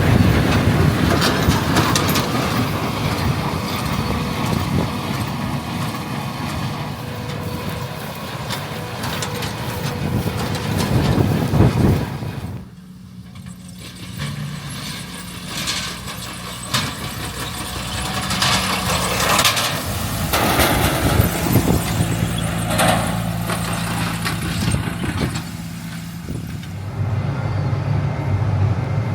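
Heavy diesel farm machinery running in the field. About twelve seconds of dense mechanical clatter cut off suddenly, followed by a steadier engine drone with scattered clanks.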